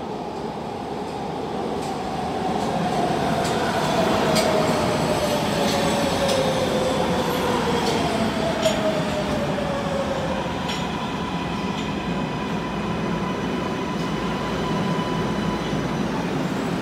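MARTA rapid-transit train pulling into a station and slowing: its whine falls steadily in pitch over about ten seconds, with a few sharp clicks from the wheels on the rails. After that a steady higher tone holds.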